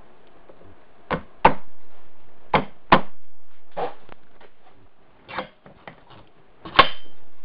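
About seven sharp knocks of metal on metal at uneven intervals, each ringing briefly, with a few lighter ticks between them. They come as a Wheel Horse transmission input shaft is worked through its bearing and seal into the right side cover, a snug fit.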